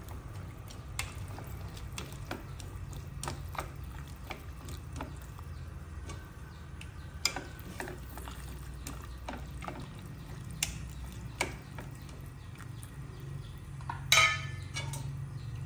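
Chopsticks stirring green beans in a stainless-steel pot of hot water, making scattered light clicks and taps over a steady low hum. A louder clatter comes near the end.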